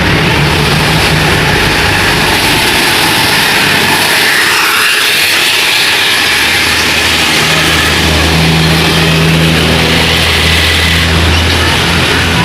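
Heavy road vehicles driving past with their engines running, over steady road noise. The engine hum fades around four to six seconds in, and a deeper engine comes through from about seven seconds.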